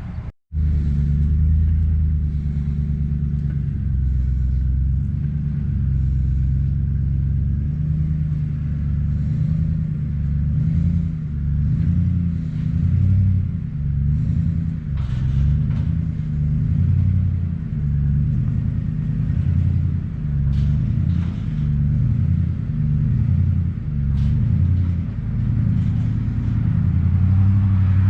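Pickup truck engine running at low speed while pulling a loaded trailer, a steady low rumble that rises and falls a little. The sound cuts out for an instant just after the start.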